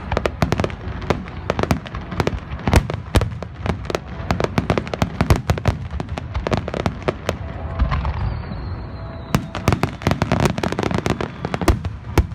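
Aerial fireworks going off in rapid volleys: dense, sharp bangs and crackles. They thin briefly around eight seconds, when a faint high whistle slides down, and then another dense volley follows.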